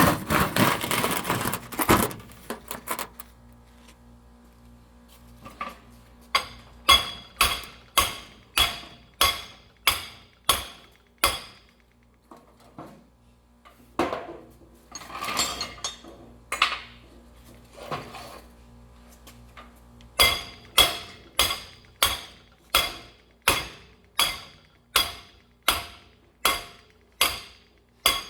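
Hammer blows on a steel bench vise, a sharp ringing metal clink on each strike, coming in runs at about one and a half blows a second. A short rushing noise opens the stretch before the hammering starts.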